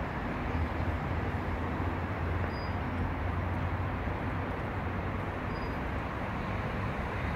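Steady outdoor background noise, a low rumble with no distinct events.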